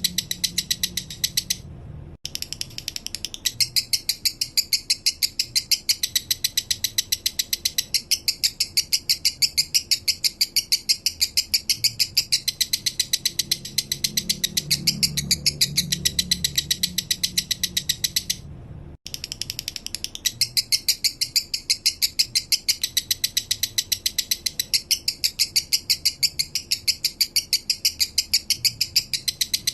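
Male lovebird singing a long, rapid string of high-pitched chirps, with two brief pauses.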